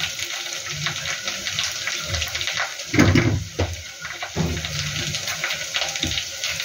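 Kitchen tap water running in the sink, with small clicks and clatter of vegetables and utensils being handled, and one louder knock about three seconds in.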